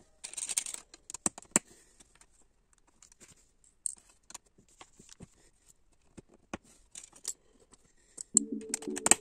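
Plastic LEGO pieces clicking and tapping as they are handled and pressed together, with a short rustle about half a second in. Background music comes in near the end.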